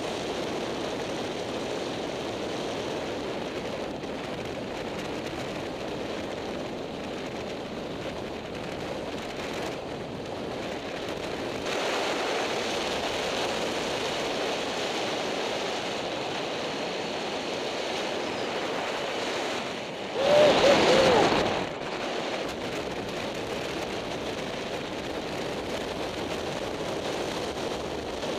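Steady wind noise on an onboard camera's microphone, with inline skate wheels rolling on asphalt at downhill racing speed. About two-thirds of the way in comes a brief, much louder burst with a wavering pitch.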